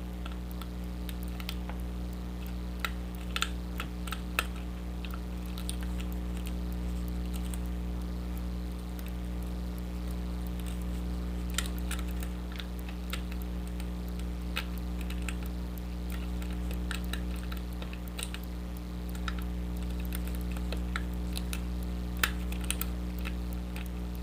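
Lock pick and tension wrench working in a pin-tumbler challenge lock: scattered light metallic clicks and taps at irregular intervals as the pins are picked, over a steady low hum.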